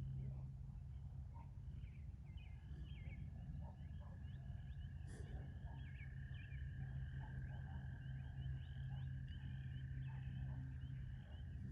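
Many short bird chirps, joined about two seconds in by a long, steady high trill, over a low steady hum.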